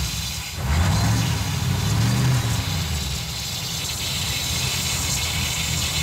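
Supercharged 5.4 L V8 of a Ford SVT Lightning idling, with the hiss of a vacuum leak over it. The leak is traced to a PCV hose that was not pushed fully onto its fitting.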